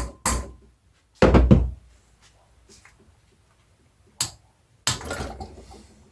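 The last two quick hammer taps on the engine case's bolts to loosen them, then a heavier clunk about a second in. A single knock and a short clatter of tools and parts being handled follow near the end.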